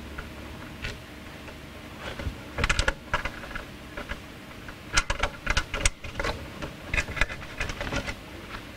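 Electrical cables and wires being handled by hand, giving irregular small clicks and rattles. These come in clusters about two and a half seconds in, around five seconds, and again around seven to eight seconds.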